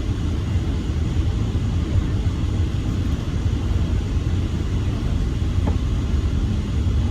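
Steady low rumble of an MCI coach bus under way, engine and road noise heard from inside the passenger cabin.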